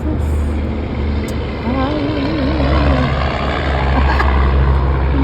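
A steady low drone with a person humming a wavering tune over it.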